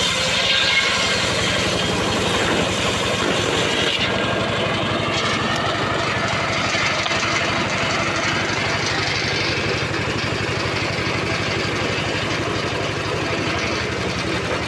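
Engine of a homemade circular sawmill running steadily at an even speed, with no cut under way.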